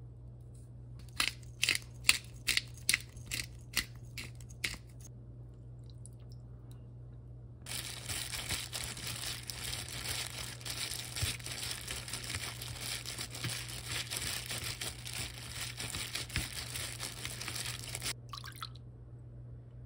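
A hand in a disposable plastic glove mixing and kneading sliced raw beef in a stainless steel tray: the glove crinkles and the meat squishes in a dense, crackly rustle for about ten seconds, starting about a third of the way in. Earlier, about ten sharp clicks come over a few seconds as the beef is seasoned. A steady low hum runs underneath.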